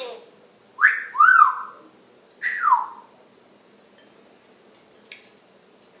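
African grey parrot whistling: a whistle that rises and then arches up and down about a second in, followed by a second whistle that slides down in pitch.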